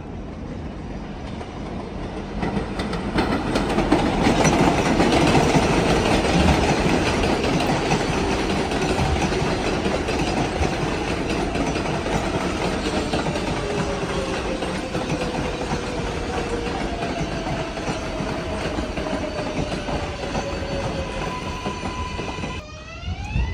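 New York City Subway 7 train running in on the elevated steel structure. Wheels clatter over the rails, getting louder from about three seconds in, then a long falling whine as the train slows. A rising whine begins just before the end.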